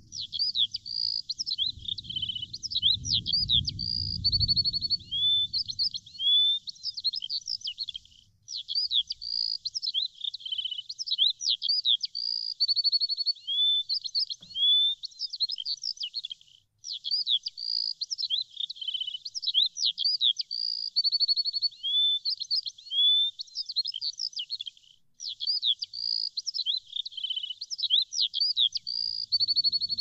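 Small songbirds chirping and trilling in a dense, high-pitched chorus of quick slurred notes. The same stretch of song repeats about every eight seconds, with a brief break between repeats.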